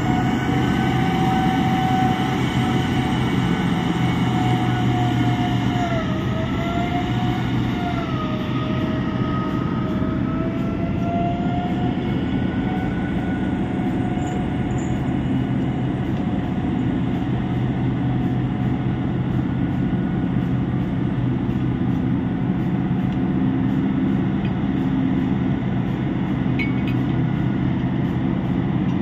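Mining haul dump truck running past: a steady low engine rumble with a high drivetrain whine. The whine wavers and drops in pitch about six to eight seconds in, then fades out a few seconds later while the rumble carries on.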